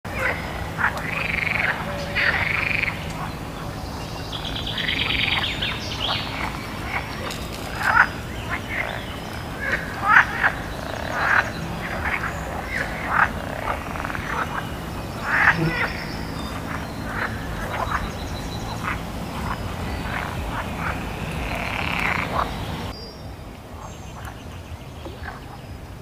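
Many short croaking animal calls, frog-like, following one another irregularly over a steady low drone. The sound drops to a quieter level about three seconds before the end.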